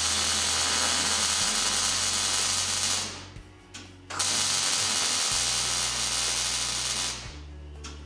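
MIG welding arc crackling steadily as a steel bracket arm is welded to a mower deck: two welds of about three seconds each, with a short pause between them.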